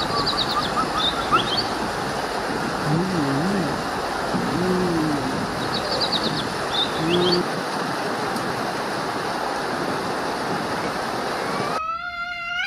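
Steady rush of a waterfall, with short high bird chirps near the start and again about six seconds in. Near the end a cat gives a rising meow.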